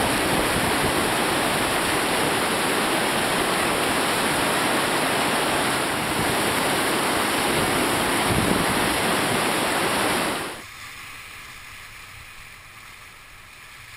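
Steady loud rush of whitewater river rapids, which cuts off abruptly about ten and a half seconds in to a much quieter background hiss.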